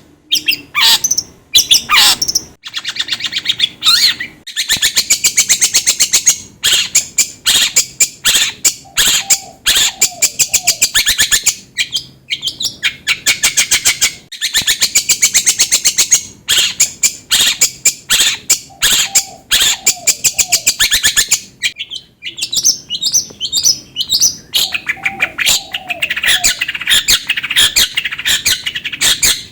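Long-tailed shrike (cendet) singing: long bursts of rapid, harsh chattering and trilled notes broken by short pauses, with a few lower whistled notes mixed in now and then. Used as lure song to set a caged shrike singing.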